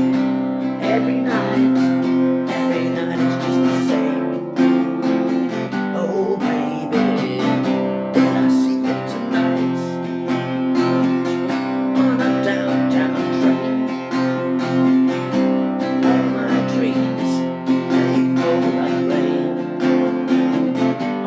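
Acoustic guitar strummed steadily, playing the instrumental ending of a song after the last sung line.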